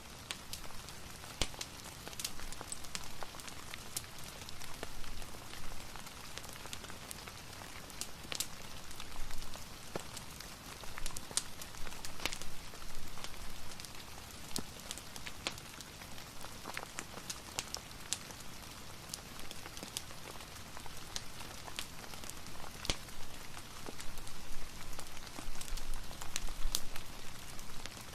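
Steady soft rain mixed with a fireplace crackling, with frequent sharp clicks and pops scattered through the even hiss.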